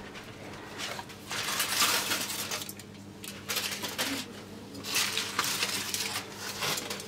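Kitchen dishware and utensils clinking and clattering in several short bursts, over a faint steady low hum.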